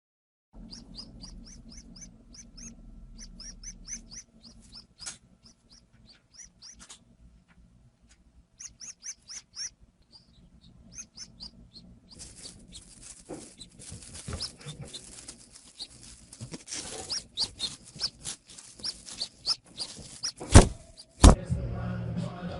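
Baby pigeon (squab) peeping: runs of short, high cheeps, several a second, in bursts with pauses. From about halfway there is rustling under the peeps, and near the end two loud knocks come less than a second apart.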